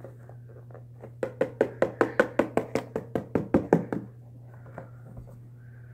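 A hand tapping on a cardboard box of baking soda held over a bowl, to shake the powder out: a quick, even run of sharp knocks, about six a second, lasting nearly three seconds.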